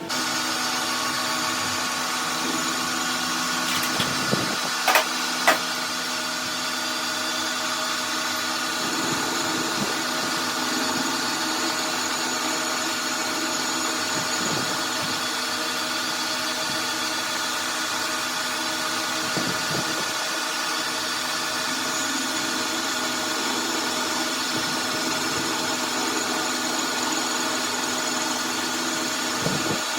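A workshop machine tool running steadily, its motor giving a constant mechanical hum with whine, and a few sharp metallic clicks about four to five and a half seconds in.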